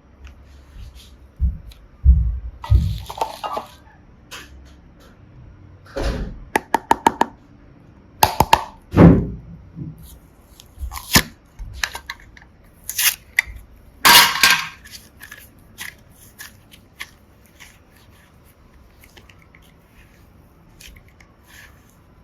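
Hands working slime and small plastic pieces: irregular squishes, crackles and clicks. A quick run of clicks comes about seven seconds in and a longer crackle around fourteen seconds, growing sparse near the end.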